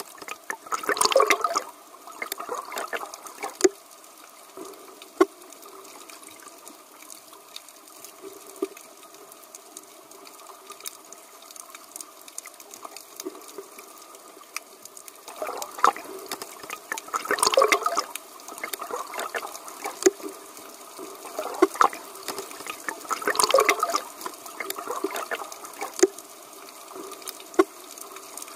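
Underwater sound of a scuba diver's exhaled bubbles gurgling in bursts every few seconds, over a steady hiss with scattered sharp clicks.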